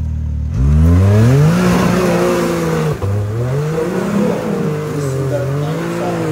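Can-Am side-by-side's engine revving hard under load as it claws out of a ditch, spinning its tyres in the dirt. The revs climb sharply about half a second in, drop briefly near three seconds, then rise again.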